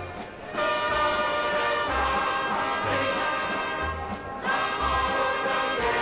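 Brass-led band music from a German sing-along Schunkel record, held chords over a low beat about once a second. The music dips briefly right at the start and again just after four seconds.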